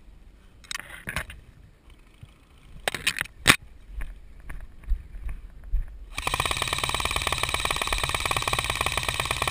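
Rustling and a few sharp snaps of someone pushing through dry scrub. Then, about six seconds in, an airsoft electric rifle fires one long full-auto burst: a fast, even rattle of shots that is the loudest sound here.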